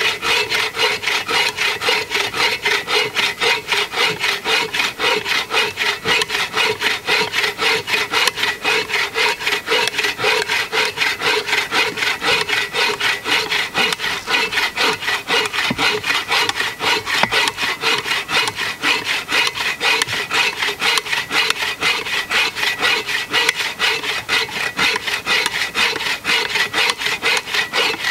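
Agawa folding bow saw cutting through a log of dry hophornbeam (ironwood), with steady, even back-and-forth rasping strokes of the blade in the hard wood.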